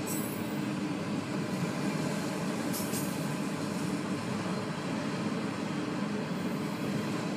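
Freight train of autorack cars rolling steadily past, a continuous rumble of wheels on rail heard from inside a car, with brief high clinks at the start and about three seconds in.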